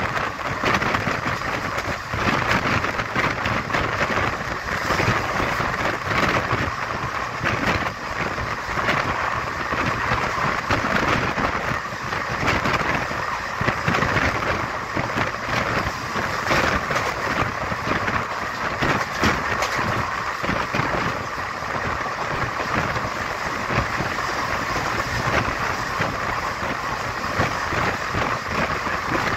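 Steady rushing noise of a vehicle in motion, loud and unbroken throughout.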